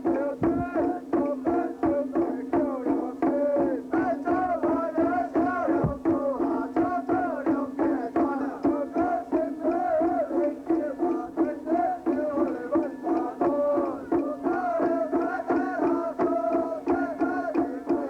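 Traditional temple procession music: a wavering melody over drums and percussion, with a steady held note underneath.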